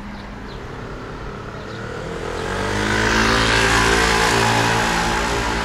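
A car driving past close by: its engine hum and road noise swell from about two seconds in, are loudest in the second half, and fade away near the end.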